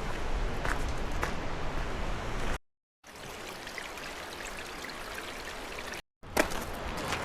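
Footsteps of a person walking, faint steps about half a second apart, over a steady rushing outdoor noise. The sound cuts out to dead silence twice for a moment.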